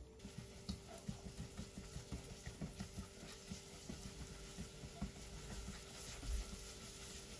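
Diced onion frying in oil in a nonstick pot, stirred with a silicone spatula: a quiet sizzle with soft, irregular taps and scrapes of the spatula against the pot.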